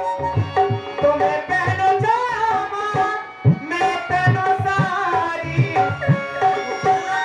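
Live Indian folk music: a hand drum beats a steady, quick rhythm while a woman sings over it into a microphone.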